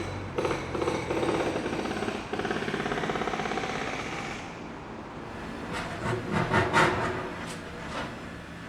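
Backhoe at work: its diesel engine runs under load with a dense, fast rattle for the first four or five seconds, then drops back. A cluster of sharp metallic clanks and knocks follows, about six to seven seconds in.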